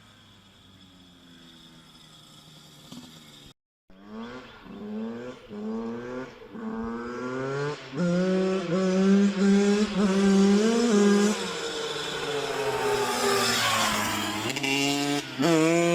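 Yamaha YZ85 two-stroke dirt bike engine, bored out to 105 cc, heard faint and dropping in pitch at first. After a brief break it revs up again and again in rising steps as it accelerates through the gears, holds high revs, then falls away, and revs hard again at the end.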